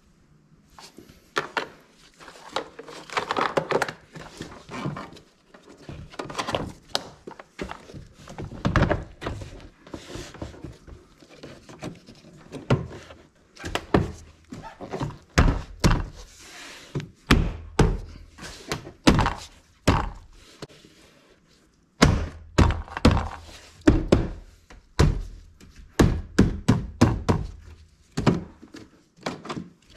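Repeated knocks and thunks from the parts of a car's front door being handled, with a quick run of strikes near the end.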